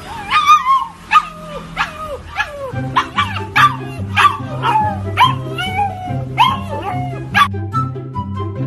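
A fluffy husky-type puppy howling in a run of about a dozen short yowls, each falling in pitch; the calls stop about seven and a half seconds in. Background music plays throughout.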